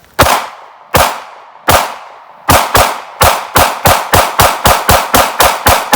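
Glock 43X 9mm pistol fired about fifteen times: three spaced shots, then a rapid string of about three to four shots a second.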